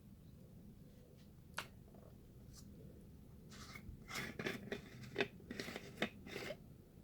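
Small plastic handheld fan being handled: a few light clicks, then a quick run of short rubbing and clicking sounds with some sharper clicks, about halfway through.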